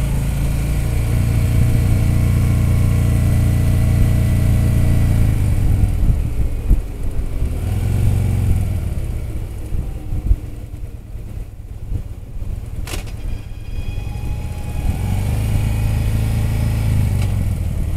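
Harley-Davidson touring motorcycle's V-twin engine running under way, with wind noise. The engine note falls about five seconds in as the throttle eases, swells briefly, stays low for a few seconds, then picks up again near the end. There is one sharp click about two-thirds of the way through.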